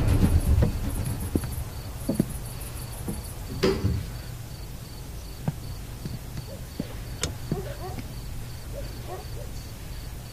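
Night ambience: a cricket chirping in steady, even pulses over a low hum, with a few soft knocks and creaks scattered through it.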